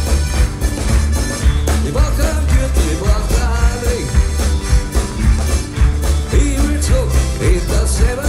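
A live folk-pop band playing a song: strummed acoustic guitars, accordion and a strong, pulsing electric bass line.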